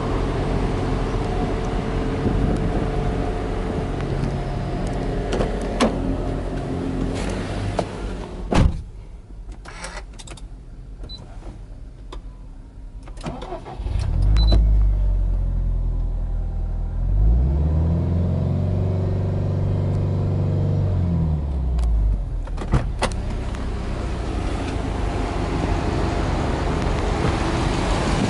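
Subaru Impreza WRX STI hatchback's turbocharged flat-four engine started from inside the cabin about halfway through, after a door thud and a few small clicks. It catches and runs, its pitch rising and falling once, then idles steadily after another click near the end.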